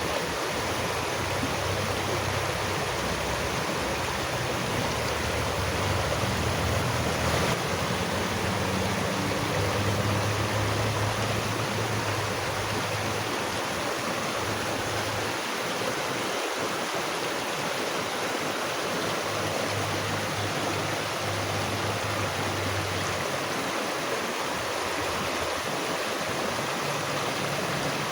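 Running water rushing steadily, like a stream, with a low rumble coming and going underneath.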